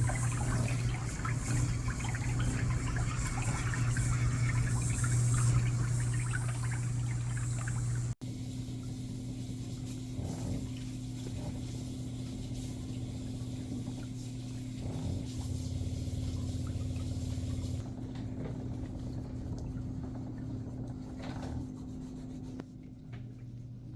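Water running and splashing in a pedicure foot spa over a steady motor hum. After a sudden break about eight seconds in, only the steady hum remains.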